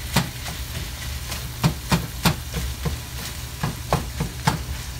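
A plastic meat chopper striking and scraping through ground sausage and bacon in a nonstick skillet: irregular knocks about two to three a second, over the steady sizzle of the meat frying.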